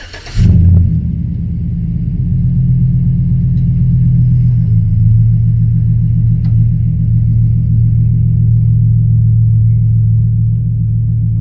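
Chevrolet Silverado 5.3-litre LS V8 starting about half a second in, flaring briefly, then settling into a steady idle heard close up from the wheel well beside the freshly reinstalled headers. The owner calls the exhaust leak repair a success.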